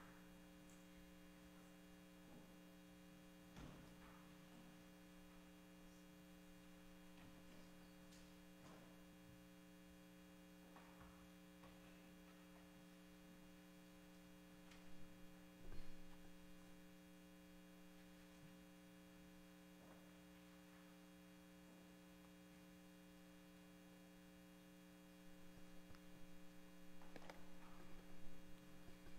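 Steady electrical mains hum in a quiet room, with a few faint bumps and shuffles of people moving about. Handling noise rises near the end.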